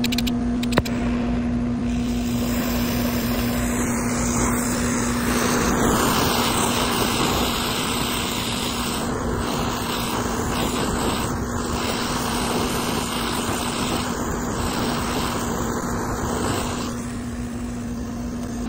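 Oxy-acetylene brazing torch burning with a steady rushing hiss while brazing a copper joint on a condenser coil. The hiss grows stronger a few seconds in and eases near the end. A couple of sharp clicks come at the start, and a steady low hum runs underneath.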